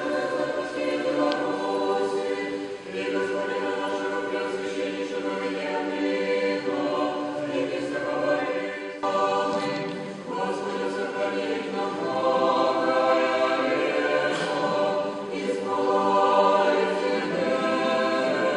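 Orthodox church choir singing a cappella, several voices in harmony holding long notes that change every second or two.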